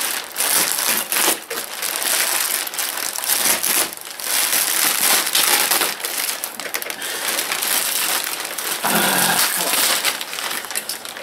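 Plastic wrapping and bubble wrap being pulled and crumpled by hand: a continuous crinkling and crackling with a few brief pauses.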